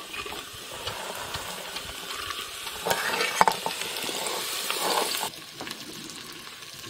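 Chopped vegetables tumbling off a steel plate into hot oil and onion tempering in an aluminium pressure cooker, sizzling as they hit the fat: the start of sautéing the vegetables for khichdi. The sizzle grows louder from about three seconds in, with a few clicks of pieces landing, then drops away suddenly about five seconds in.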